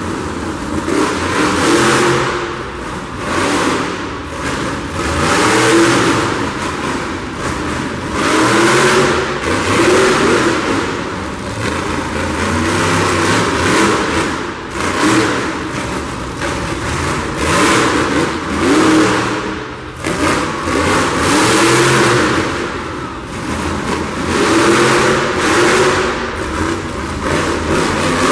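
Monster truck's big V8 engine revved up and down again and again as the truck drives and turns, loud and echoing in an arena.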